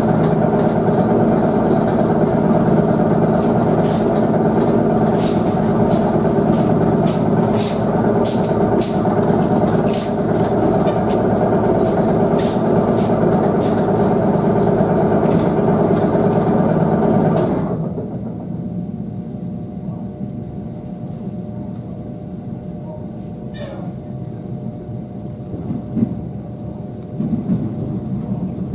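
ET2M electric train running, heard from inside the car: a loud steady rumble and hum with scattered clicks. About 18 seconds in the motor noise cuts off sharply, leaving a quieter wheel rumble with a faint high whine, a click and a couple of thumps.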